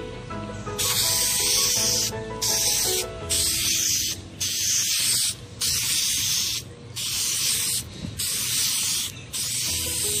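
Dupli-Color Vinyl & Fabric aerosol spray can hissing in a run of short sprays, each about a second long with brief pauses between, starting about a second in, as the second coat is laid on.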